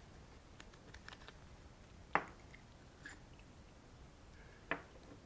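Small clicks and taps of parts being handled as a lawn tractor's starter solenoid is taken apart, with one sharp click about two seconds in and another near the end.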